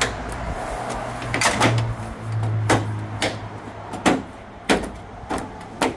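Plastic hood face panel of a Toyota Tundra being pressed and patted into place by hand: a run of about nine sharp clicks and knocks, irregularly spaced.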